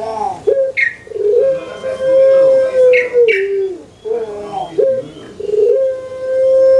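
Collared dove (puter) cooing, the long-drawn coo sought in pelung doves: twice, a short note leads into a long held note that drops away at its end.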